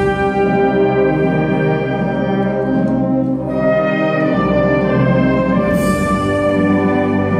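Wind band of clarinets and brass playing a slow funeral march in long sustained chords, with a crash about six seconds in.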